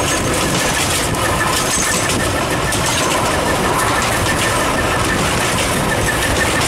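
Ww class steam tank locomotive hauling a train, heard from a carriage behind it: a steady, unbroken mix of locomotive and running noise. Heavy wind and rain buffet the microphone over it.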